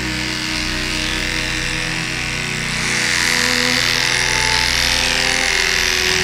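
Cordless dog clipper fitted with a 7FC blade running with a steady motor hum, then shaving through matted fur from about three seconds in, which adds a louder hiss as the blade cuts.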